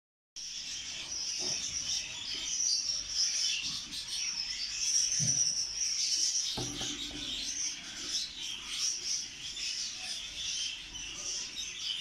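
Exhibition budgerigars chattering and warbling in a steady, dense chorus of high chirps, with a few faint soft knocks underneath.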